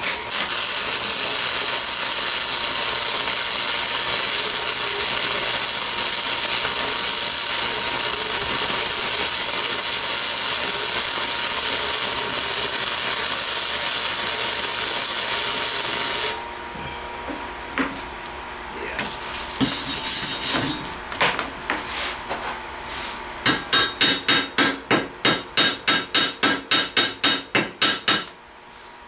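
A power tool runs steadily for about sixteen seconds and stops suddenly. After a few scattered knocks, a fast even run of strikes follows near the end, about four a second.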